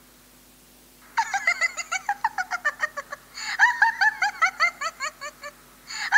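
A cartoon character's high-pitched giggling: quick runs of laughing syllables that start about a second in, with a short break around the middle.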